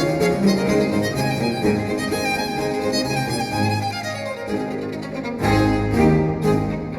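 Recorded music led by bowed strings such as violin, with many sustained notes and one falling slide; about five and a half seconds in, a heavy bass and a steady beat come in.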